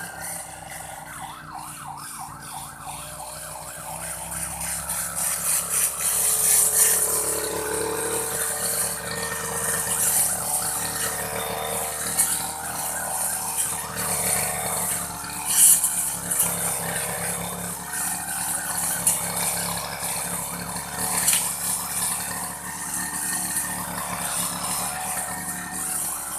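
Old grass-cutting machine running steadily, with repeated swishing as it cuts through grass; it grows louder about five seconds in.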